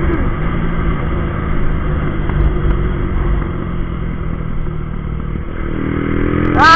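Small street motorcycle engine, geared with a 14/32 sprocket, running steadily at high speed of about 120 km/h, heard from the rider's seat. The engine note grows clearer near the end.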